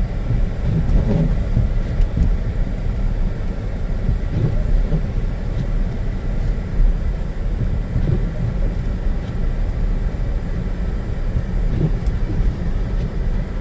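Cabin road noise of a Ford Edge driving on a snow-covered road: a steady low rumble of tyres and engine.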